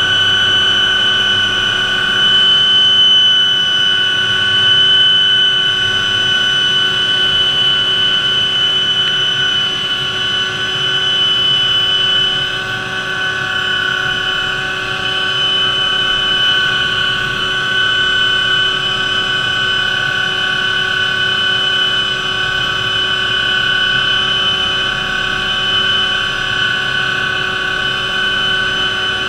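Hughes OH-6A helicopter's Allison T63 turboshaft and rotor running steadily, heard inside the cockpit: a constant high turbine whine in two pitches over a loud even rush.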